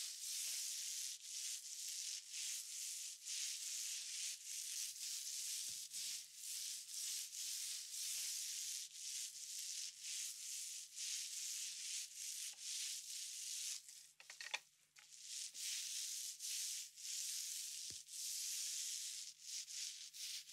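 Paint rollers rolling over a wall in repeated strokes: a steady hiss that swells and dips with each pass.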